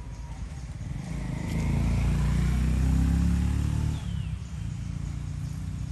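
A motor vehicle engine's low hum swells about a second in, holds for about two seconds and drops away sharply; a short, high falling squeak follows just after.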